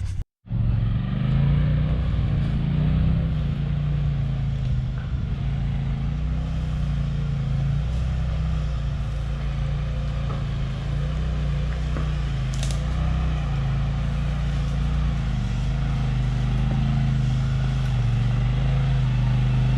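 Side-by-side UTV engine running steadily at fairly low revs, its pitch rising and falling a little as the throttle changes on the trail.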